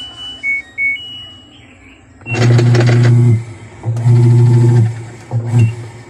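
LG top-load automatic washing machine: a few control-panel beeps, then the drive engaging in three short agitation bursts, a loud low hum with a rattle over it. This is the sound that shows its gearbox (clutch assembly) is broken.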